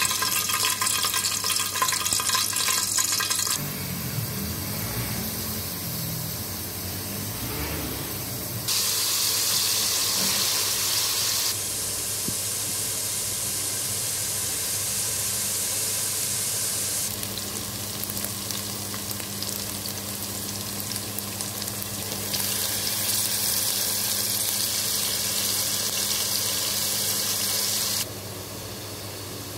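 Sliced onions and chicken pieces frying in oil in an aluminium pot: a steady sizzle that jumps up and down in level at several abrupt cuts.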